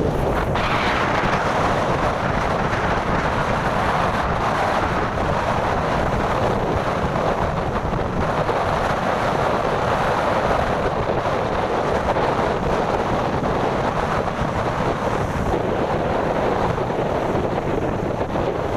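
Strong wind blowing across the microphone, with the steady rush of big waves underneath.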